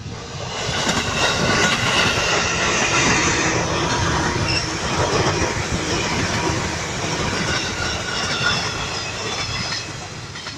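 JR 205 series electric commuter train passing close by, its wheels clattering over the rails with high steady whining tones above. It swells in the first second or so as the train arrives and eases a little near the end as the last car goes by.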